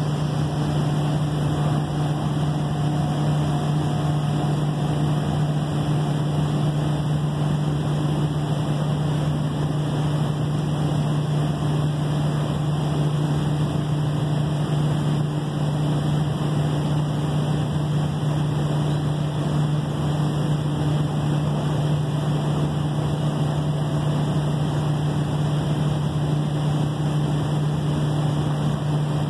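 Steady low drone of ship machinery: a constant low hum over an even wash of noise, unchanging throughout.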